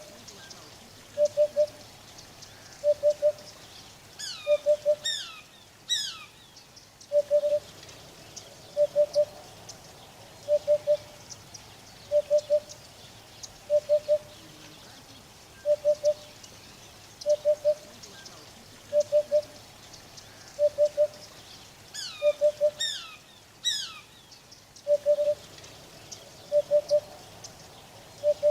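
Eurasian hoopoe singing its soft three-note "hoo-hoo-hoo" call, repeated steadily about every second and a half to two seconds. Twice, about four seconds in and again near the end, a short series of loud, high, falling whistled calls from another bird joins in.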